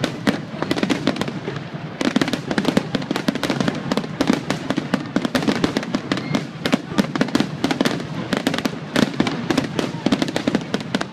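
Aerial firework shells bursting in a rapid barrage, many bangs and crackles a second overlapping without a break.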